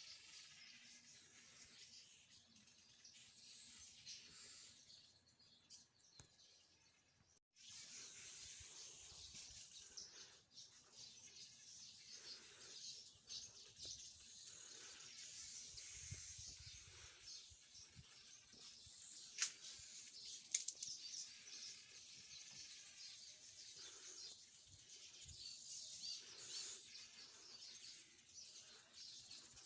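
Small birds chirping faintly, many calls overlapping into a continuous high twitter. The sound drops out for an instant about a quarter of the way in and comes back a little louder, and two sharp clicks stand out around two-thirds of the way through.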